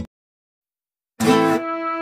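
Dead silence for about the first second, then background music with a steady beat of plucked notes starts up again.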